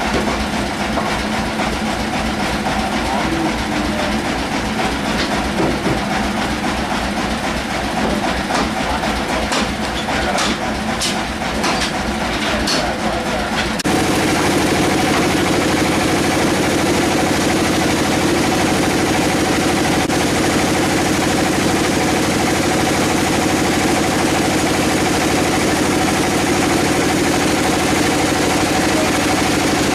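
Heavy sawmill machinery running: an engine chugging with a fast low pulse, with a cluster of sharp clicks and knocks, then about halfway in it changes abruptly to a steadier, louder machine hum.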